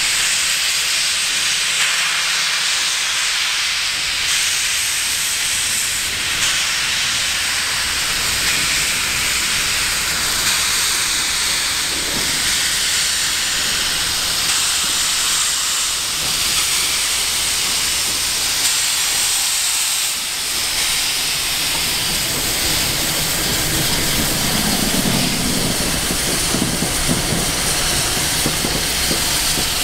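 Victorian Railways R class 4-6-4 steam locomotive R711 moving slowly with a loud, steady hiss of escaping steam. A deeper rumble builds under the hiss during the last several seconds as the engine passes.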